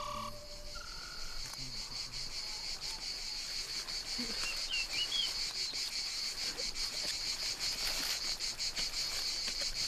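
Steady, rapidly pulsing chirring of insects in dry grassland, with a few short bird chirps about halfway through. The last electronic note of the theme music fades out in the first second.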